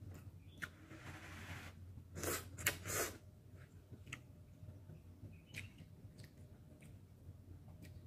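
Close-miked eating of kimchi ramen: a person chews and slurps noodles, with the loudest slurping about two to three seconds in and scattered small mouth clicks.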